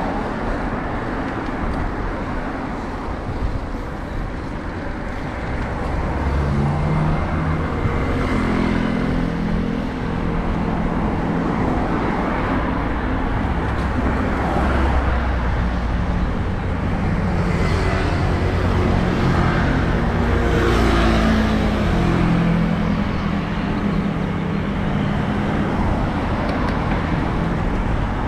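Cars passing on a two-lane road, heard from a bicycle's handlebar camera: engine hum builds and fades several times over a steady low rumble, with the hiss of tyres loudest about two-thirds of the way through.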